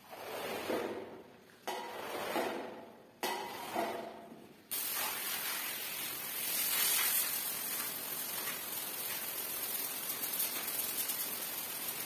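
Several swishing strokes of a squeegee pushing dirty, soapy water across a rug and wet tile floor. About five seconds in, a steady hiss starts and runs on.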